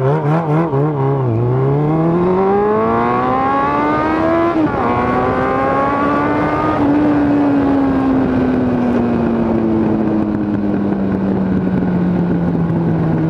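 Suzuki GSX750F's inline-four running through an open full exhaust as the bike pulls away from a stop. The revs climb, drop suddenly at a gear change about four and a half seconds in, climb again until about seven seconds, then fall slowly.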